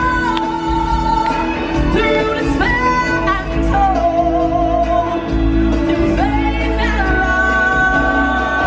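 Music with a singing voice holding long notes over a steady bass, the last note wavering with vibrato.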